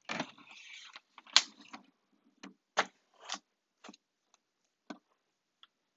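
A brief rustle, then scattered short clicks and knocks, the sharpest about a second and a half in, growing sparser toward the end.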